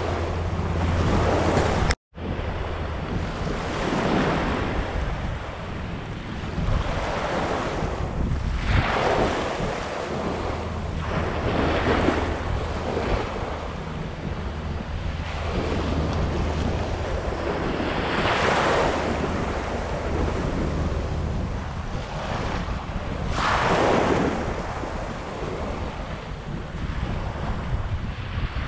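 Small waves washing onto the beach in soft swells every few seconds, with wind rumbling on the microphone. The sound cuts out for an instant about two seconds in.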